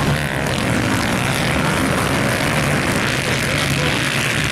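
Several dirt bike engines buzzing and revving as the bikes race past on a dirt track.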